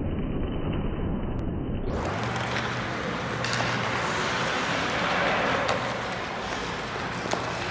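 Hockey skate blades scraping and carving on rink ice, a steady hiss with a few faint clicks over a low steady hum. About two seconds in the sound turns suddenly brighter and fuller.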